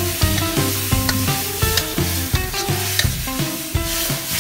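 Pork stir-frying and sizzling in a steel wok, with a metal spatula scraping and clacking against the pan several times a second. Background music plays along with it.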